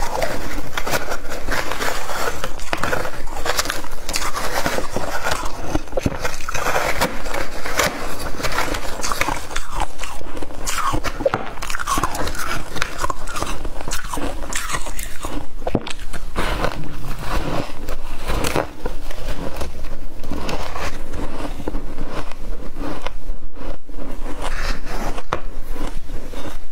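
Freezer frost being bitten and chewed close to the microphone: a dense, continuous run of crisp icy crunches and crackles.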